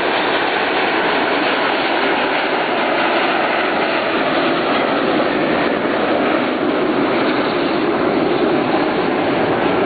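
Military jets flying past in formation: a steady, loud roar of jet engines.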